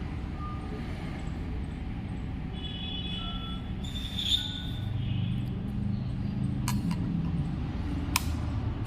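Steady low rumble of road traffic that swells for a couple of seconds past the middle, as a vehicle goes by, with a few short sharp clicks near the end.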